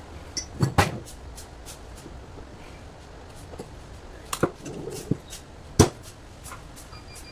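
About seven sharp knocks and taps in two clusters: three about half a second to a second in, then four between about four and six seconds in, over a steady low background hum.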